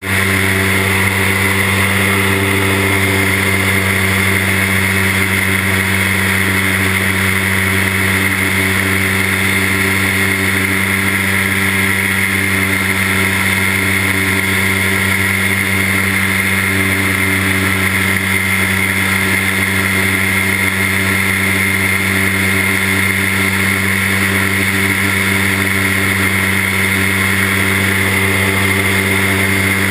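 Homebuilt experimental ultralight aircraft's engine and propeller droning in flight, heard from inside the enclosed cockpit, holding a steady pitch throughout.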